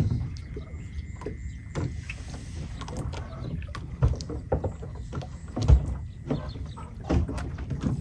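A small boat moving through water, with irregular knocks and thumps; the loudest thump comes about two-thirds of the way through.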